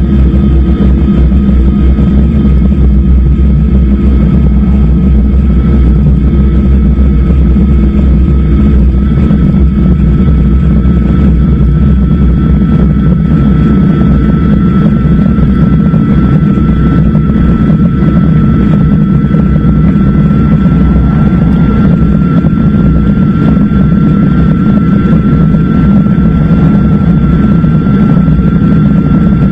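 Steady loud wind and road rumble on an action camera's microphone riding on a moving e-bike, with a thin steady whine running over it.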